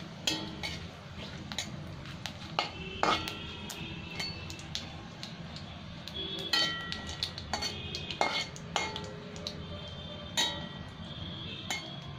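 Flat spatula clinking and scraping against a metal kadai while stirring whole spices frying in oil for a tempering. It strikes at irregular intervals, and several strikes leave the pan ringing briefly.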